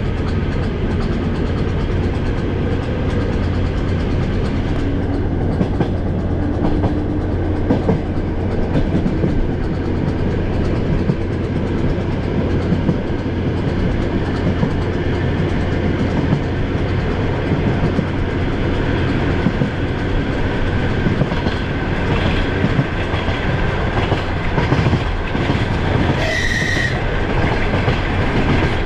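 Suburban electric multiple-unit train running at speed, heard from a carriage window: a steady rumble with a low hum and the clickety-clack of wheels over rail joints. Near the end a brief high-pitched sound cuts through for about a second.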